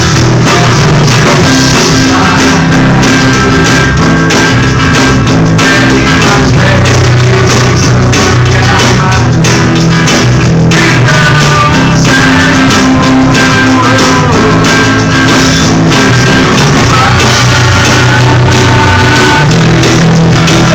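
A band playing rock music with singing, guitar and drums, loud and without a break.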